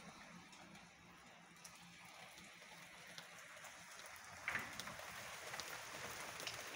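Light rain falling: a faint, steady hiss with scattered ticks of drops. A brief louder rustle comes about four and a half seconds in.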